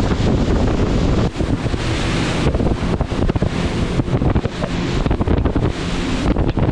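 Wind buffeting the microphone and water rushing past the hull of a fast-running charter boat, with a steady engine drone underneath.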